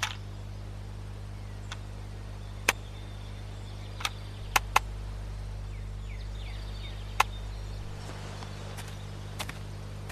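Sharp, separate plastic clicks from a handheld blue device being handled and its buttons pressed, including a quick pair near the middle, over a steady low hum.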